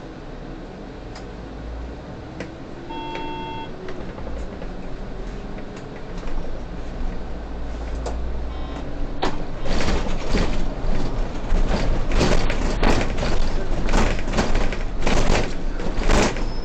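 Low running rumble inside a moving city bus's cab, with a short beep about three seconds in. From about nine seconds a run of loud bursts of noise, roughly one a second, sits over the rumble.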